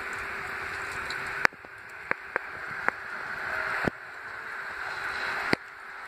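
Steady hiss of outdoor ambience in falling snow, broken by about six sharp clicks and knocks from a phone being handled and repositioned.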